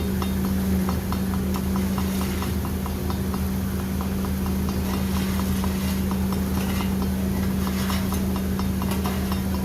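Boat engine running steadily with a low drone and a light, even ticking about five times a second.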